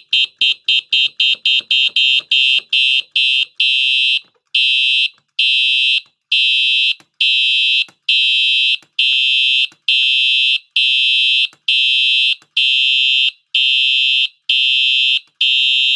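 Simplex 4903-9241 fire alarm horn sounding a loud, high-pitched blaring tone in even pulses. It goes fast at first, about three to four blasts a second, then slows to a march-time pattern of about one and a half blasts a second some four seconds in.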